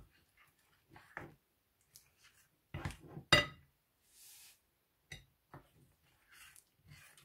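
Plastic spoon knocking and scraping against a glass plate while a sticky glue and shaving-foam slime mixture is stirred, in a few separate clicks. The loudest is a sharp clink with a brief glassy ring a little past three seconds in, as the spoon is laid down on the plate. A short hiss follows around four seconds in.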